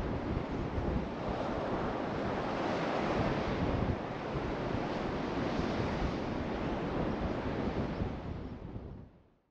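Surf washing on a beach with wind buffeting the microphone, a steady rushing noise with gusty low rumble that fades out near the end.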